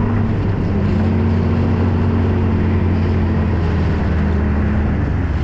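Snowmobile engine running steadily at cruising speed while towing a loaded sled, a loud, even drone.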